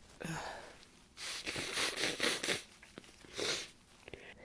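A woman with a cold sniffling and taking short, breathy gasps as a sneeze builds: a breath at the start, a quick run of sniffs and gasps, then another breath.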